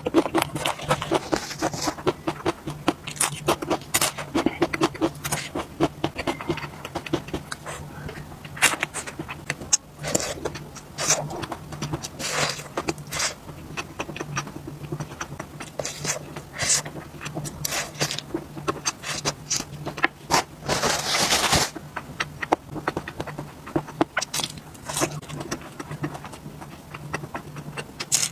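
Close-up wet chewing and crunching of spicy skewered food such as lotus root and mushroom, with irregular bites and mouth clicks, and a longer hissing stretch about three quarters of the way through. A steady low hum runs underneath.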